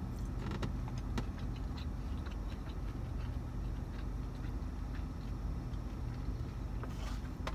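Steady low hum of a car idling, heard from inside the cabin, with a few faint scattered clicks from a plastic fork and chewing.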